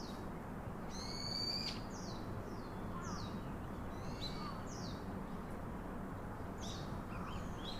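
A small bird chirping quietly in short, high chirps, a cluster of quick notes about a second in and single chirps scattered after, over a steady low background hum.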